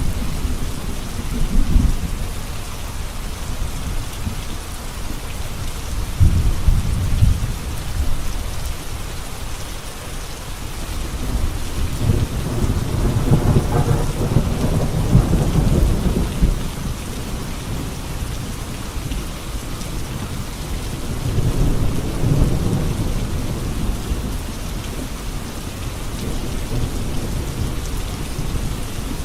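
Heavy rain falling steadily on a road, with low rumbles of thunder swelling and fading several times; the longest roll comes near the middle.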